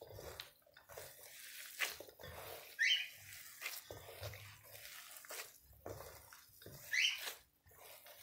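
Gloved hands kneading a damp bulgur köfte paste in a metal bowl: soft, irregular squishing and pressing strokes, with two short rising squeaks about three and seven seconds in.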